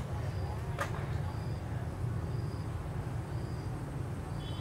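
Outdoor background noise: a steady low rumble, with a faint high chirp repeating about once a second and a single click about a second in.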